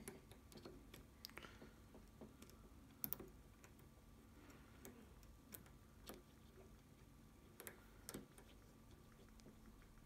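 Faint, irregular small clicks of a disc-detainer pick turning the rotating discs inside an Abloy Classic padlock as it works back down the disc stack. A few clicks are sharper, about three seconds in and again near eight seconds.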